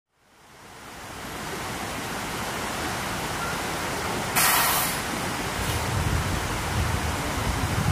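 Steady rushing wind noise on the microphone that fades in from silence. A brief loud hiss comes about four and a half seconds in, and low buffeting rumble starts from about six seconds.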